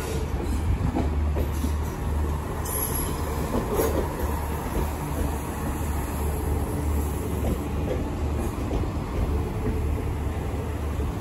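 NI Railways diesel multiple unit running into the platform: a steady low engine hum with wheels rumbling on the rails.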